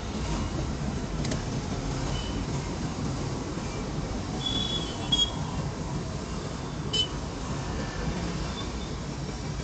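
City traffic heard from inside a moving car: a steady low rumble of engine and road noise, with a few short high-pitched horn beeps from nearby vehicles, the loudest about five and seven seconds in.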